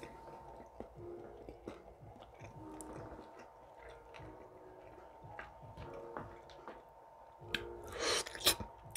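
Close-miked chewing of orange segments, with small wet mouth clicks and smacks; a louder, juicy burst of chewing comes about eight seconds in.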